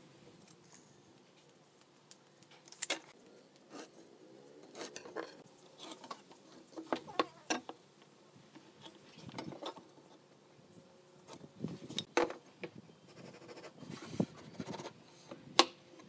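Scattered clicks, taps and light scrapes of hand tools and pine boards being handled on a wooden workbench while measuring and marking out: a tape measure, marker pen, steel square and marking gauge used and set down on the wood.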